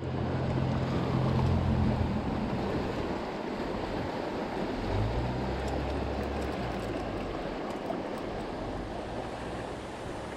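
Steady rush of river water, with gusts of wind buffeting the microphone, strongest in the first two seconds and again about five seconds in.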